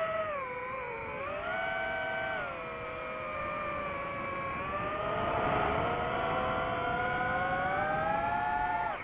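DJI FPV quadcopter's motors and propellers whining as it flies, the pitch sliding with the throttle: it dips about a second in, jumps back up, drops again, then climbs slowly through the rest.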